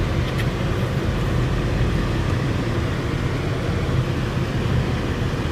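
Inside a moving car on a rough dirt track: a steady low rumble of tyres and engine, with a faint click or two about half a second in.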